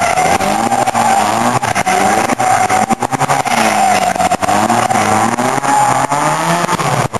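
Car engine revving up and down several times in quick succession as the car is driven hard through a driving-skill course, with tyres squealing steadily over it. Short crackles run through the sound.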